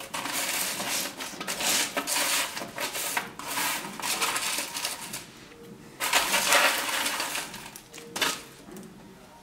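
Freshly baked oat granola being broken up and turned by hand on a parchment-lined baking tray: dry, crisp crackling and crunching of the clusters, baked extra crunchy. The crunching pauses about five seconds in, comes back for another second or so, and ends with one more crunch near the end.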